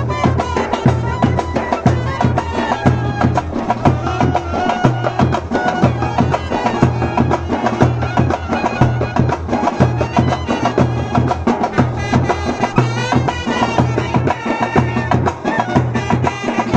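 Live brass band music: clarinet and trumpets playing a melody over large bass drums, a barrel drum and hand cymbals beating a steady, dense rhythm.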